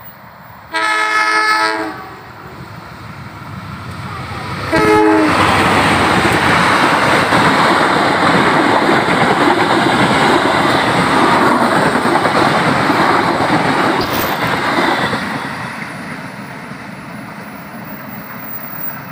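Diesel-hauled passenger train sounding its horn, a loud blast about a second in and a short one about five seconds in, then passing close by with a loud rush of wheels on the rails. The rush fades away from about fifteen seconds as the last coaches go by.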